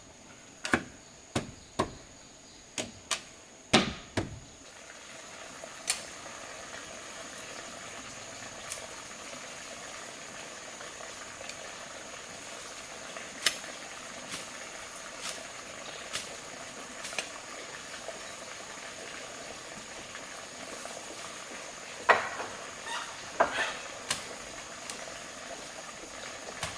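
About six sharp knocks in quick succession, then a steady hiss that sets in about four and a half seconds in, with scattered clicks and two louder knocks near the end, over a constant high insect trill.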